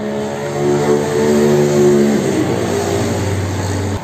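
A motor vehicle's engine passing on the road, swelling to its loudest in the middle and then dropping in pitch as it goes by. The sound cuts off suddenly near the end.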